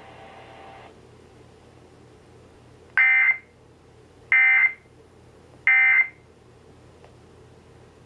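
Three short buzzing electronic data bursts, the EAS/SAME end-of-message code, through the speaker of an Eton hand-crank emergency weather radio, about a second and a half apart. They mark the end of a flash flood warning broadcast. Faint steady hiss of dead air lies between them.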